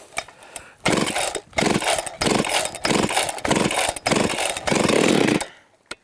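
Two-stroke chainsaw running just after a one-pull start, revved in about seven short bursts of throttle that drop back toward idle between them, then cut off about five and a half seconds in.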